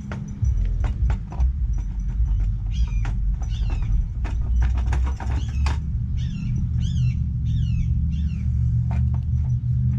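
A steady low hum with scattered sharp clicks and knocks, joined from about three seconds in by a run of repeated high chirping calls that dip in pitch, several a second.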